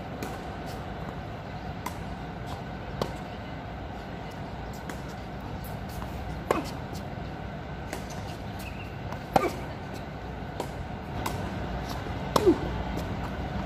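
Tennis rally on a hard court: sharp pocks of racket strings hitting the ball and the ball bouncing, the loudest about every three seconds, with fainter hits and bounces between, over a steady hum of city traffic.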